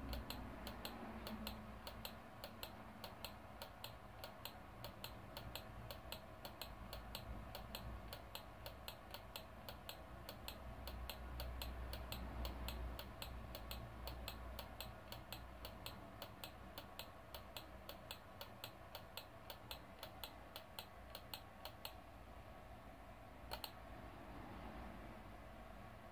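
Rapid, evenly spaced clicking, a few clicks a second, over a low hum; the clicking stops near the end after one last click.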